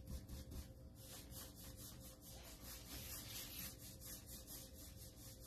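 Faint, quick back-and-forth strokes of a paintbrush scrubbing chalk-style paint over the wooden side of a small bookshelf.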